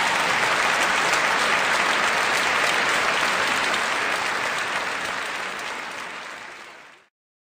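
Audience applauding: dense, steady clapping that fades over a couple of seconds and then cuts off about seven seconds in.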